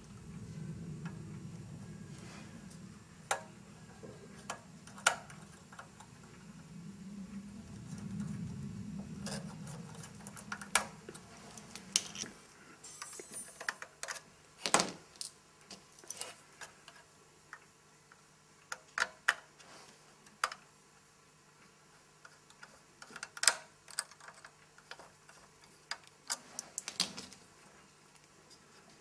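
Scattered light metallic clicks and taps of a small hand tool against the metal body and frame of a model electric locomotive, as parts are pushed and worked into place. A low rumble underlies the first dozen seconds or so.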